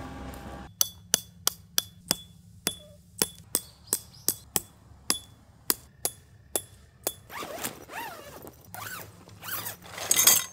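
Tent pegs being hammered into gravel ground: a run of about twenty sharp metal-on-metal strikes, each with a short ring, at roughly three a second. The strikes stop about seven seconds in, followed by scraping and rustling of tent gear, loudest just before the end.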